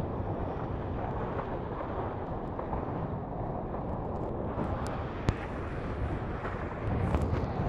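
Steady rushing of wind and water around a Hobie 16 catamaran sailing fast in strong wind, with a single sharp knock about five seconds in and a brief louder rush near the end.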